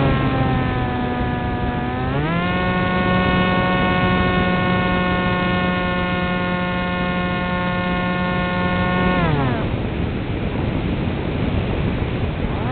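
Electric motor and propeller of an RC foam flying wing, heard from the wing-mounted camera: a steady whine at low throttle that throttles up about two seconds in and holds. About nine seconds in the motor is cut, leaving only a noisy rush of air as the wing glides.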